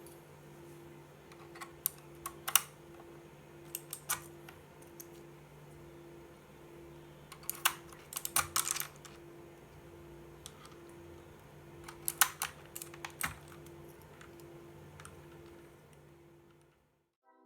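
Keys of a Fantech MAXFIT61 mechanical keyboard pressed in short, scattered clusters of clicks rather than continuous typing, over a faint steady hum.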